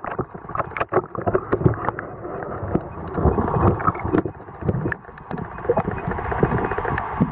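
Muffled sound from a camera held underwater: an uneven rush of water with many small knocks and clicks against it.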